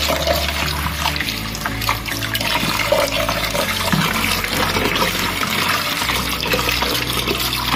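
Tap water running into a plastic bowl of guava leaves, splashing as a hand swishes and rubs the leaves to wash them.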